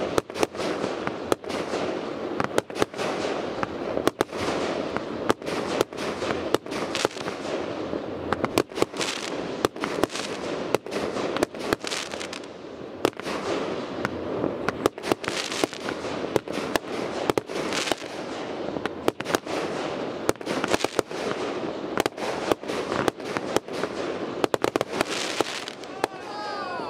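Consumer firework cakes firing non-stop: a rapid string of sharp launch and burst reports, often several a second, with crackling between them.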